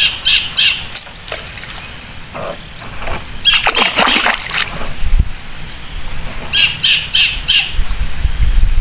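A bird calling in quick series of short notes, three at the start and four near the end, with a brief noisy burst about halfway through.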